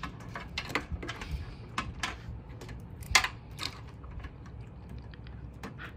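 Irregular sharp plastic clicks and taps of a SATA power connector being handled and pushed onto a hard drive in a steel PC case, the loudest click about three seconds in.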